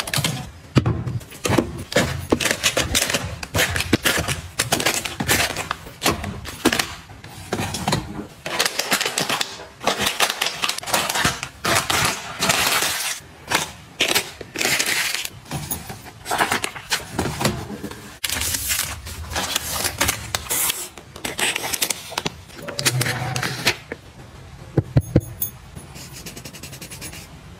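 Plastic wrapping of soft packs of paper hand towels crinkling and rustling as hands handle and open them, in quick irregular bursts. Near the end the rustling dies down to a few sharp taps.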